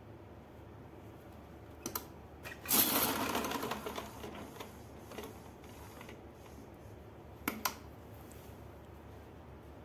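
Domestic sewing machine running briefly: a short, loud run of stitching about three seconds in that fades over about a second, set among a few light clicks as the fabric is shifted under the presser foot, with two sharp clicks near the end.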